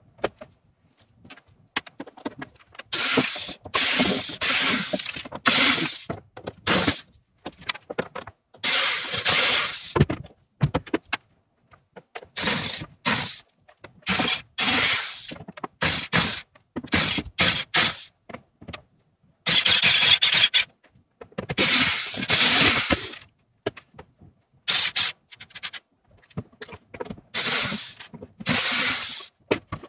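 Irregular bursts of work noise as a wooden bed is taken apart with a cordless drill: screws being backed out and boards scraping and knocking. Each burst stops abruptly.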